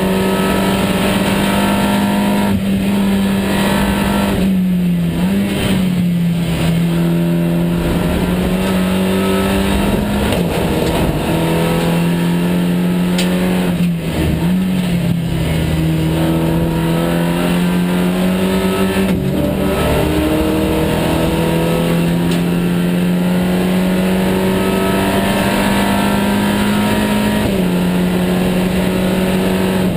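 SEAT Supercopa race car's engine running hard under racing load, heard from inside the cabin. The note falls and climbs again as the revs change, with several short dips, as at gear changes or lifts for corners.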